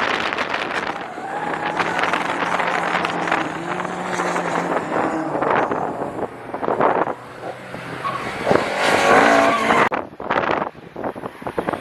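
Ford cars driven hard on a racing circuit, engines revving with tyres squealing, one passing loudest about nine seconds in. Strong wind buffets the microphone.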